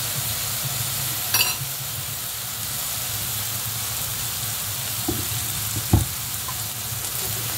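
Tofu, tomato and onion sizzling steadily in a nonstick frying pan, with fish sauce just added. A short clatter comes about a second and a half in, and a dull knock, the loudest sound, near six seconds.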